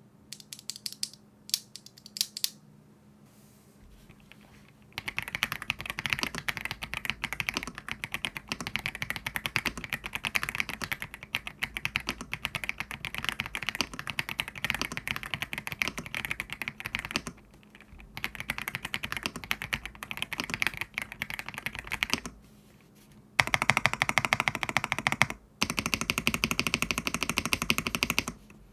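Typing on an Aula F87 Pro foam-filled tenkeyless mechanical keyboard with its stock Leobog Gold switches, giving a muted clacky sound. A few separate keystrokes come first, then steady typing from about five seconds in with short pauses, and a faster, louder run of keystrokes near the end.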